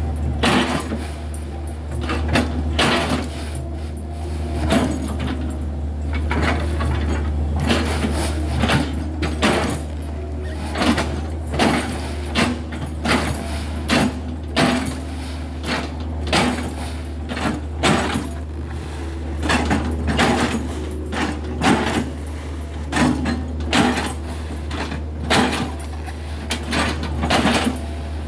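Hitachi hydraulic excavator's diesel engine running steadily under load while its bucket and chipping knife bite repeatedly into a felled oil palm trunk, each bite a sharp chopping impact, more than once a second.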